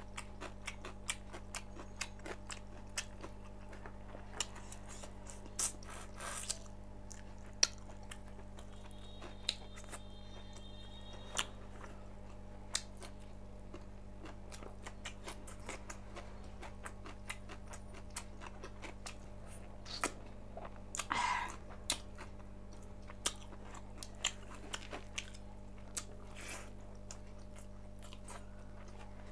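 Close-miked chewing and biting of cooked pork: wet mouth clicks and crunches several times a second, with one longer, louder burst about two-thirds through, over a steady low hum.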